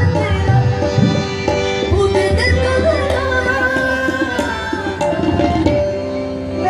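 Harmonium and tabla playing together, with a young male voice singing over them.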